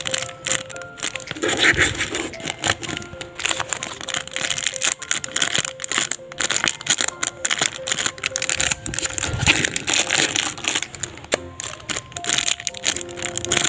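Plastic packaging crinkling and rustling as it is handled and opened, over background music with steady held notes.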